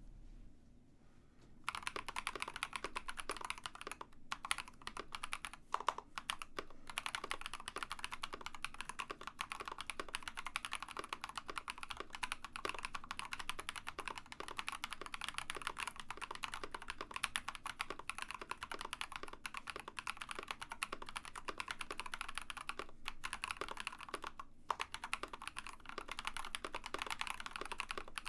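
Fast, continuous typing on a custom mechanical keyboard fitted with Builtbynim long-pole linear switches (nylon-blend top housing, polycarbonate bottom housing, POM stem), each keystroke a clack. The typing starts after a short pause and stops briefly a few times.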